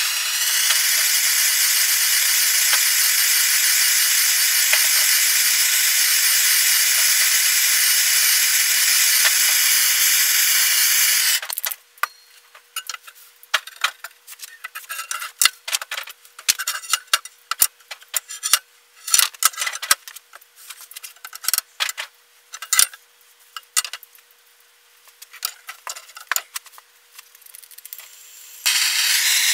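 Handheld gas torch hissing steadily as it heats a half-inch steel bar, cutting off after about eleven seconds. Then scattered knocks and clinks as the bar is levered and bent in a bench vise. The torch hiss starts again near the end.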